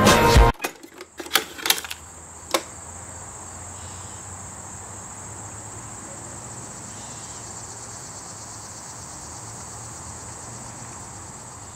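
Music cuts off about half a second in, a few sharp clicks follow, then crickets chirp in a steady high trill.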